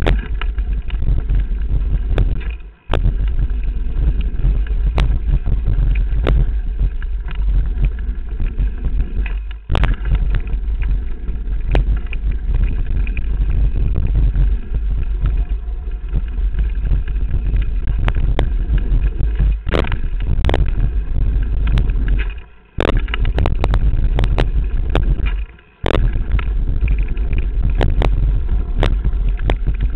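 Wind buffeting the microphone and the rattle of a Transition Bottlerocket mountain bike ridden fast down a rough dirt trail, with frequent sharp knocks from bumps and landings. The noise cuts out suddenly and briefly four times.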